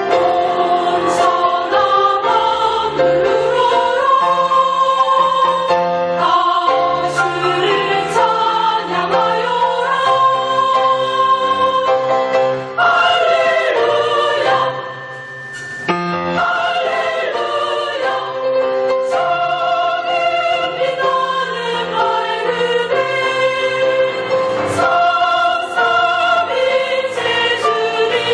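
Mixed choir singing a hymn in sustained chords. The sound dips briefly about halfway through, then the full choir comes back in.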